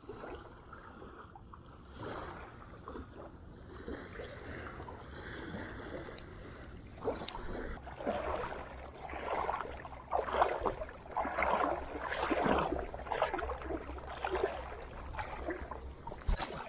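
Shallow water sloshing and splashing, irregular and growing louder about halfway through, over a steady low rumble, with one sharp knock just before the end.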